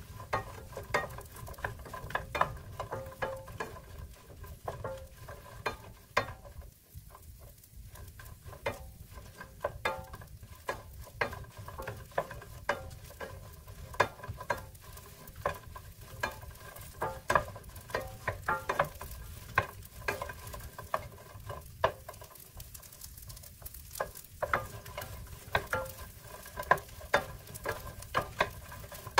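A wooden spatula stirs toasting bread cubes in a nonstick frying pan, making irregular clacks and scrapes, and the pan rings briefly after each knock. The clacks thin out about six to eight seconds in, then pick up again.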